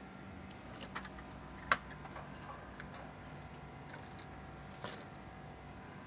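A few sharp, scattered clicks and taps over a faint steady hum, the loudest click a little under two seconds in.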